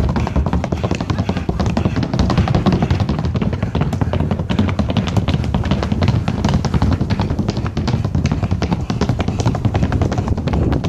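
Rapid, steady percussive tapping with a low thudding underneath, set in music.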